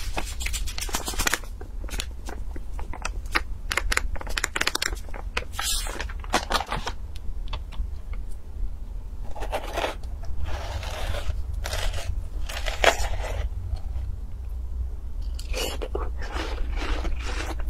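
Close-miked crackling of a plastic salt packet and salt sprinkled onto the cut face of a half watermelon. About ten seconds in, a metal spoon scoops into the watermelon flesh with wet crunching and scraping. Near the end come bites of watermelon from the spoon.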